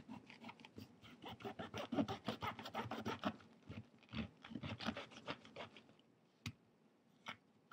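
Pomegranate quarter being broken apart and its seeds pried out of the rind by hand: dense quick crackling and snapping that thins out to a few single clicks near the end.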